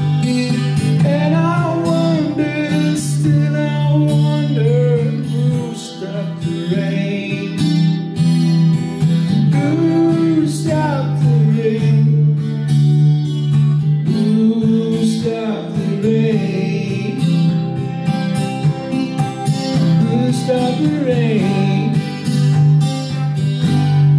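Acoustic-electric guitar strummed in a steady rhythm, with a singing voice coming in over it at times.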